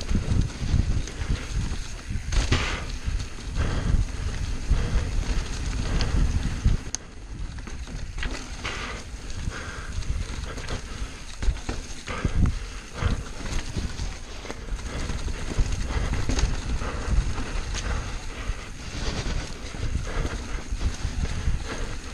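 Mountain bike riding down a rough dirt trail, picked up by a GoPro on the bike or rider: the bike rattles and knocks irregularly over bumps and roots, over a constant low rumble from the tyres and rushing air.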